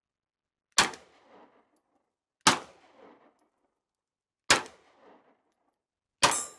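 Four single shots from a Glock 17 Gen 5 9mm pistol, spaced roughly two seconds apart. Each shot is followed by a short echo that dies away.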